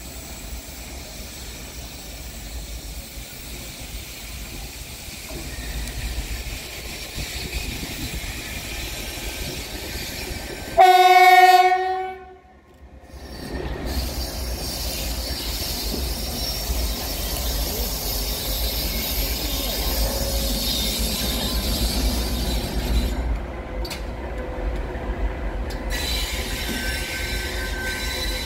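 A large diesel locomotive's engine running as it approaches, growing louder, with one horn blast of about two seconds roughly eleven seconds in. A thin high tone, like wheel squeal, sounds near the end.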